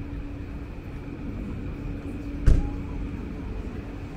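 City street background: a steady low rumble and hum, with one sharp knock or thump about halfway through.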